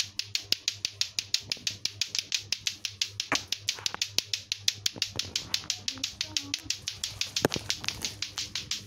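Lato-lato clackers: two hard plastic balls on a string striking each other over and over in a quick, even rhythm of several clacks a second, kept going without a break.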